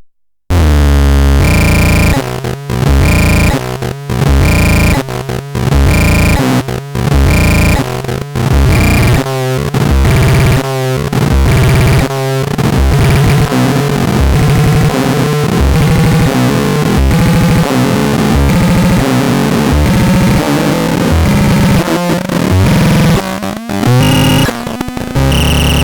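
Electronic synthesizer music: a busy, repeating melody of short, stepped notes over a steady beat, starting about half a second in.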